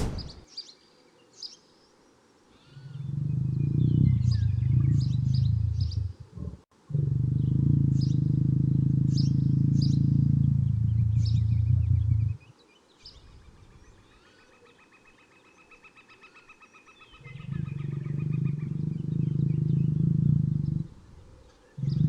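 Lion giving three long, deep growls, each lasting a few seconds, with small birds chirping in the background.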